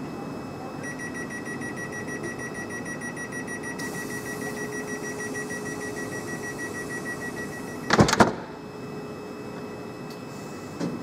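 Door-closing sequence on a Greater Anglia Class 360 Desiro electric train: rapid high door-warning beeping for about seven seconds over the train's steady hum, then two loud thuds as the doors slam shut. A softer knock follows near the end.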